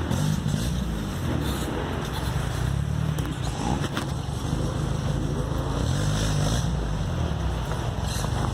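Off-road buggy engine running steadily on a downhill dirt trail, with a couple of short knocks from the rough ground.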